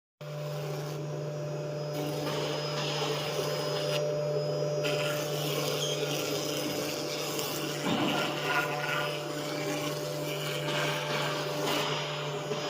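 Four-axis CNC router running: a steady machine hum with a shifting, rasping noise over it, and a brief louder stretch about eight seconds in.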